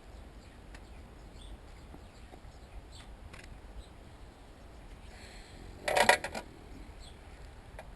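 Small metal parts or hand tools clinking inside an opened welder: a few faint ticks, then a short burst of metallic clinks and rattling about six seconds in.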